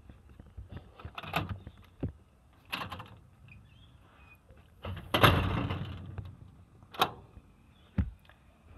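Security screen door and front door being unlatched and opened: a series of sharp handle and latch clicks and clunks, with one louder clatter about five seconds in that trails off.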